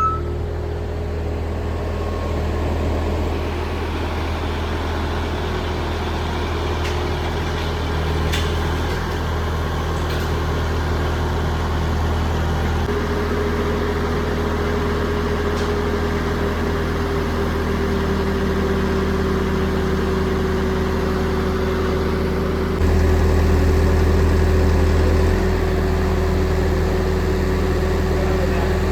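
Vehicle engine running steadily at a low rumble, briefly louder for a couple of seconds near the end.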